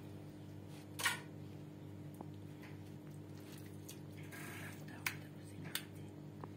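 Hands pulling boiled meat off a bone into an aluminium bowl: soft, wet handling noises with a few light clicks and taps, about a second in and near the end, over a steady low hum.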